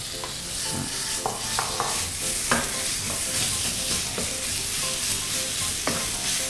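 Ground pork frying in hot oil in a pan. A steady sizzle starts suddenly as the meat goes in, with clinks and scrapes of a spatula stirring it now and then.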